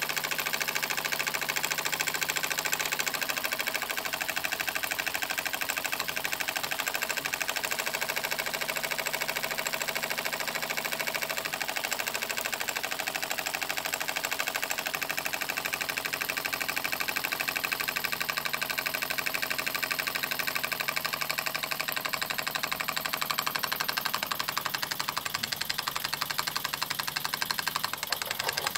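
Cyldon 13/2 toy steam engine running steadily on steam, with a rapid, even beat.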